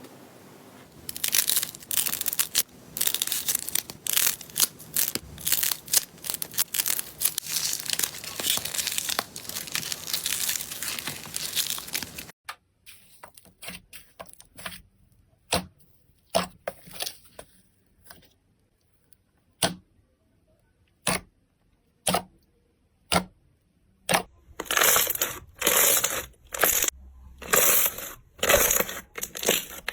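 Slime being squeezed and worked by hand, with dense crackling for about twelve seconds. It then stops abruptly, giving way to separate sharp pops and clicks, and near the end to a run of short squishing bursts.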